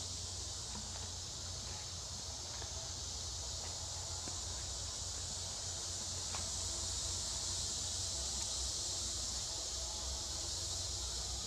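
Steady, high-pitched chorus of insects, with a low rumble underneath and a few faint ticks.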